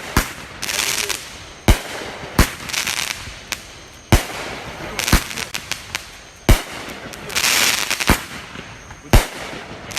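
Fireworks going off: about eight sharp bangs at irregular intervals, with stretches of crackling hiss between them.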